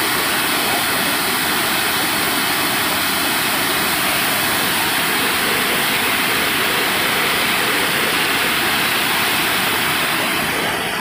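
Water pouring down a sloping concrete dam spillway and rushing through the shallows at its foot: a steady, loud rush of falling water.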